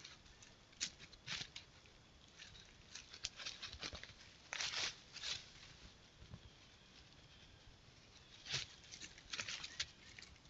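Raccoon foraging on the forest floor, its feet and nose stirring dry leaf litter: faint, irregular rustles and crackles that come in short clusters, busiest in the middle and again toward the end.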